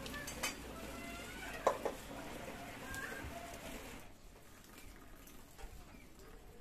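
Chickens and other birds calling, with a few sharp clicks, over a soft haze of background noise; about four seconds in, the sound drops suddenly to a quieter background with a couple of faint clicks.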